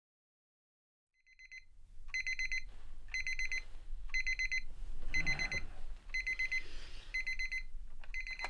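Alarm clock beeping: bursts of rapid high-pitched beeps, about one burst a second. It starts about a second and a half in, after near silence.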